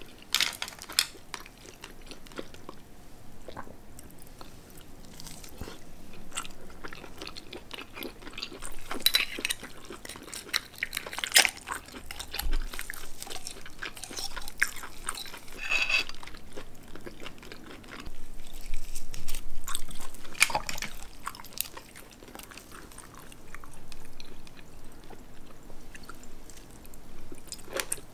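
Close-up eating sounds of steamed seafood: wet chewing and biting, with sharp clicks and taps from shells and a metal pick working meat out of a sea snail shell.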